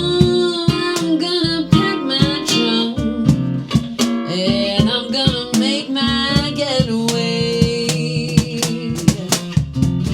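Background music: acoustic guitar strummed and plucked in a steady rhythm, with a singing voice.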